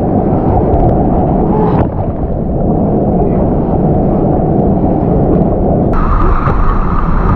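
Rushing whitewater river rapids against an inflatable raft, a loud, dense and muffled wash of water noise. About six seconds in, the sound suddenly turns brighter and clearer.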